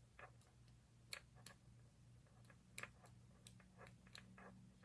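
Faint, irregular metallic ticks and clicks of a lock pick working the pin stack of a Brinks brass padlock under tension, over a low steady hum.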